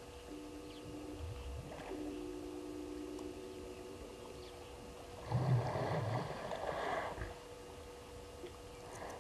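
Hippo call: a run of deep, pulsing grunts lasting about two seconds, starting a little past the middle, over a faint steady background.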